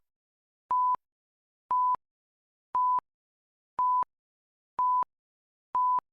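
Short electronic beeps of one steady pure tone near 1 kHz, one every second, six in all: a test-tone countdown of the kind that leads into a broadcast commercial.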